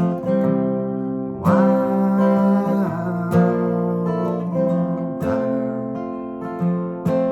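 Acoustic guitar playing an instrumental passage: chords strummed about every two seconds and left to ring between strums.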